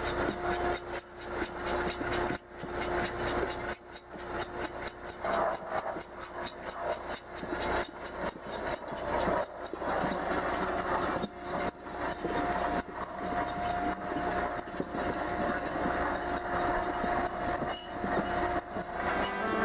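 A machine's engine running steadily with a constant hum, with frequent irregular knocks and clatter over it.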